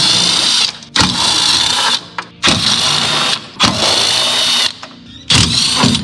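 Cordless impact tool hammering on the rear shock absorber mounting nuts and bolts. It runs in short bursts of about a second each, five in all, with brief pauses between them.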